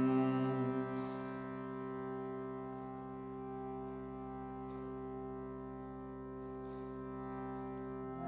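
Harmonium holding one steady sustained chord, with the last sung note dying away in the first second; the chord changes right at the end.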